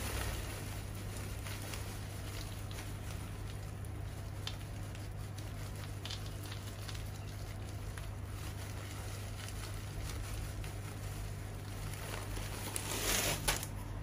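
Coarse volcanic rock poured from a plastic bag, the stones pattering onto a plant pot as a top dressing, with a louder clatter of stones about a second before the end.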